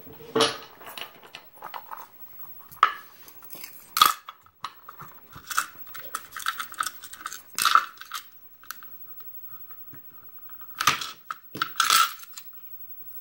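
Metal lock parts and tools handled on a wooden pinning tray: a brass lock cylinder, its key and tweezers giving an irregular run of clicks, taps and light metallic clatters.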